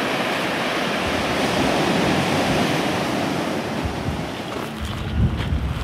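Ocean surf washing in: a steady rush of breaking waves that ebbs away in the last couple of seconds.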